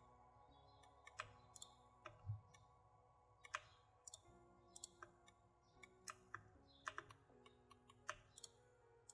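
Faint irregular clicking of a computer mouse, over quiet background music.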